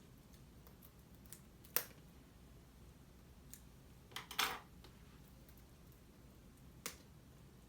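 Faint handling sounds of a Blu-ray steelbook package: a few sharp clicks and taps, with a short cluster of clicks and rustling about four seconds in, the loudest moment.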